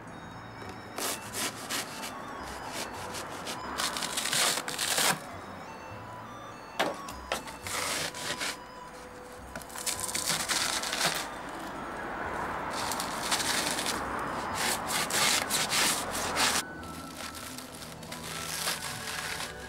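Expanded polystyrene packing foam being cut with a knife and broken off by hand in chunks: repeated bursts of crunching and cracking with sharp snaps. Background music plays underneath.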